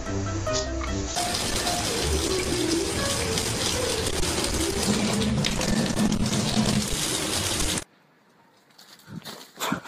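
Kitchen tap running in a steady stream into a sink, starting about a second in and cutting off abruptly near the end. Music fades out under it at the start, and a few sharp knocks come in the last couple of seconds.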